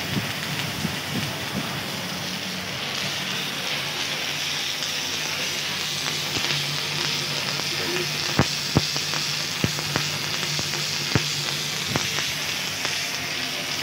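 MIG welding arc crackling steadily, with a handful of sharp pops in the second half.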